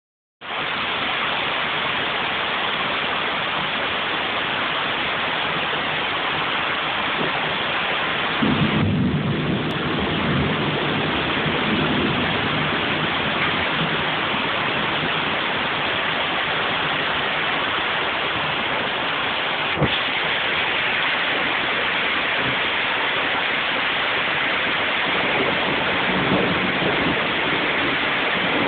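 Torrential tropical rain pouring down in a steady, dense hiss. A deeper rumble swells about eight seconds in and again near the end.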